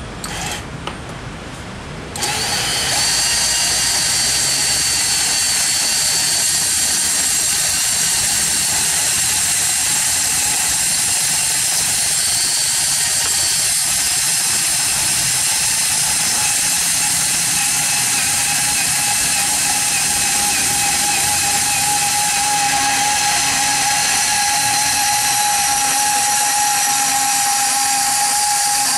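Milwaukee M12 cordless compact band saw cutting through 40 × 40 mm hollow square steel tube with a 2 mm wall: it starts about two seconds in, then runs as a steady whine with a high hiss of the blade teeth in the steel.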